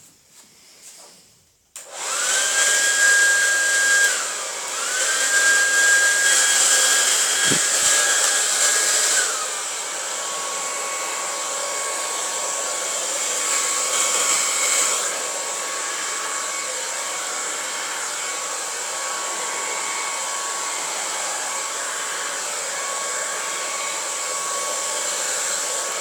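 Handheld hair dryer switched on about two seconds in, blowing wet pouring paint across a canvas: a steady rush of air with a motor whine. About ten seconds in the whine drops in pitch and the dryer runs quieter.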